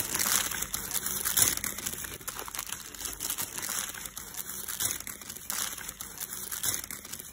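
Paper fast-food packaging rustling and crinkling as a McDonald's burger is unwrapped by hand, in irregular crackles that are loudest about a second and a half in.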